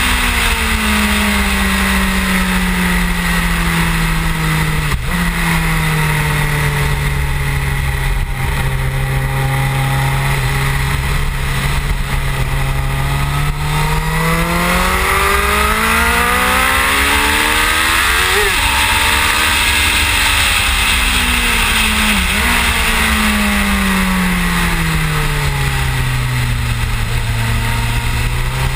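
Suzuki GSX-R1000 K7's inline-four engine at track speed, its pitch falling as the bike slows, stepping up at a downshift about five seconds in, then climbing hard under acceleration until a sharp drop at an upshift past the middle, before falling and rising again. Heard from a camera on the fairing, with heavy wind rumble underneath.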